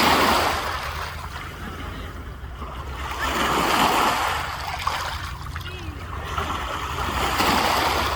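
Black Sea waves breaking on the shore, three surges rising and falling about every four seconds.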